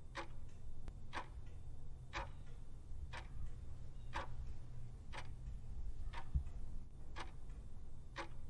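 Clock-tick sound effect of a countdown timer, one sharp tick each second, over a low steady hum.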